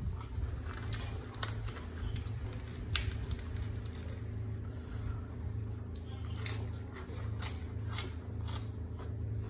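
Fresh lettuce leaves crackling and rustling as they are handled and folded by hand, with scattered sharp clicks and, near the end, wet bites and chewing, over a steady low hum.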